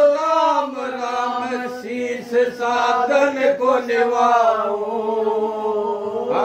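A man's voice chanting in long, drawn-out held notes.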